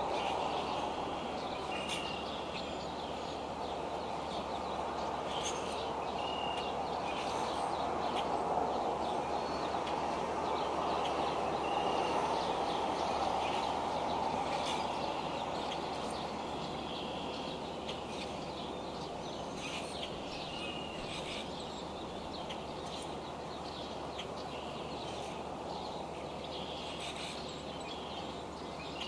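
Steady hiss of a rain shower, with short high bird calls every second or two over it.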